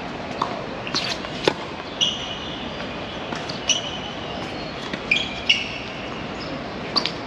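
Tennis play on a hard court: sharp pops of the ball off racket strings and the court every second or two, mixed with short high squeaks of shoes on the court surface, over a steady background hiss.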